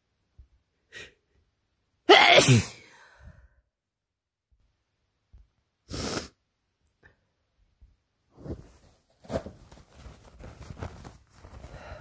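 A person sneezing from a head cold: one loud sneeze about two seconds in, its voiced cry falling in pitch. About four seconds later comes a short sharp breathy burst, and irregular softer noises fill the last few seconds.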